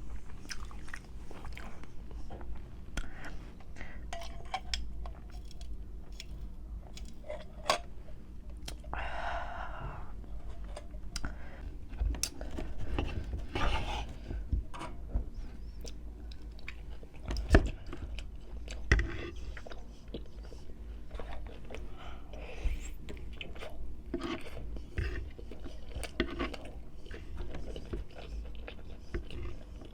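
A person chewing and crunching food close to the microphone, with scattered small wet clicks and smacks of the mouth.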